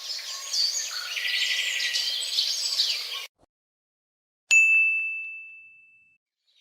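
Birds chirping for about three seconds, cut off abruptly. After a short gap comes a single bright ding: one sharp strike that rings on a clear high tone and fades over about a second and a half.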